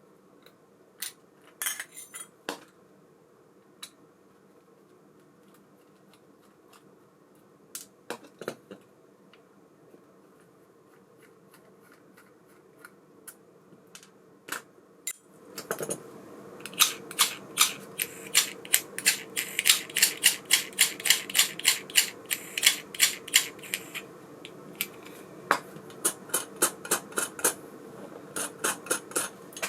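Metal parts of an ABU Ambassadeur 5500C Direct baitcasting reel clicking and tapping as it is handled. About halfway through, the reel starts turning with a steady whir and fast, regular clicking.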